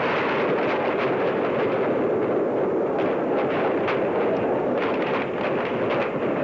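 Steady, loud rushing noise of an outdoor scene, with a few faint sharp cracks of distant gunfire about halfway through, while a crowd crouches and scatters for cover.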